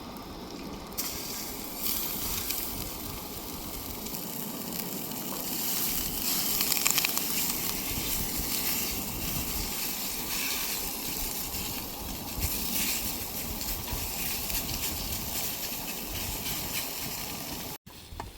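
Breakfast food sizzling in a frying pan: a steady hiss with sharper crackling around six to seven seconds in. It cuts off suddenly just before the end.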